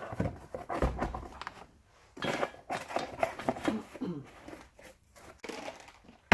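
Rustling, crinkling and light knocking of items being handled and unpacked, in short irregular bursts with brief pauses.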